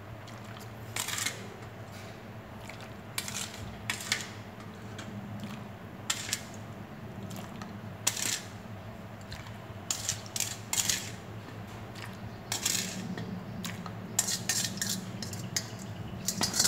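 A plastic ladle scraping and knocking against a stainless steel bowl as calamansi syrup is scooped out, in short, irregular scrapes and clinks that come faster near the end.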